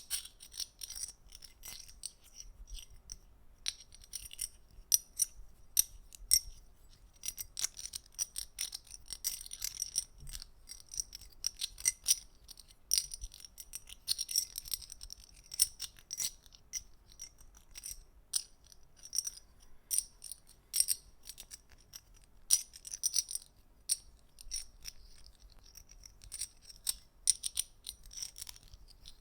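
Close-miked small hard objects clicking and tapping in quick, irregular runs, many sharp high-pitched clicks a second with brief pauses between runs.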